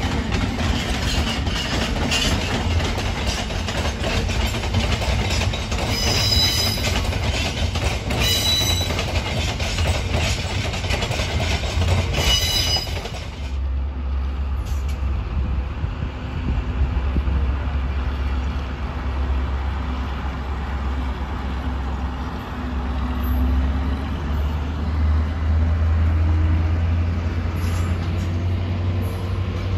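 A class 60 diesel locomotive and its wagons run past over pointwork: steady rumble and wheel noise, with several short high wheel squeals. After a sudden change about halfway through, a pair of class 73/9 locomotives running on their diesel engines move slowly, a steady low engine drone that swells near the end.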